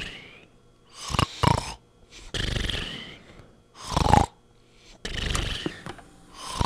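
Person snoring in two slow cycles: each breath in is a loud, rough snore and each breath out a longer hiss.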